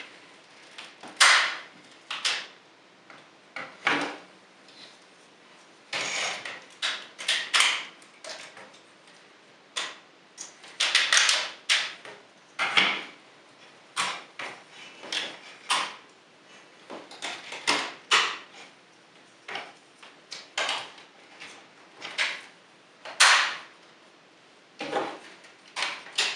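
Plastic parts of a Tyramigo transforming robot toy clicking, snapping and knocking as they are popped off, reconnected and folded from robot into dinosaur mode: irregular short clacks, several in quick runs.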